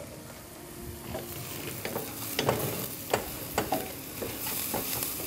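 Kitchen prep at a counter: about half a dozen light, separate knocks and clicks over a faint hiss.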